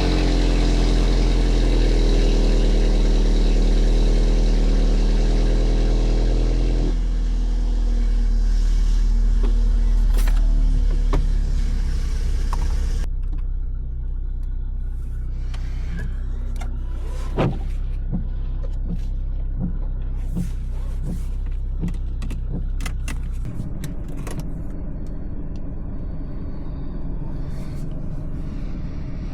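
BMW B48 turbocharged 2.0-litre four-cylinder engine with a stage 2 map and M240i exhaust, running as the car drives. The engine note is steady and loudest in the first half, then settles quieter from about halfway, with scattered sharp clicks.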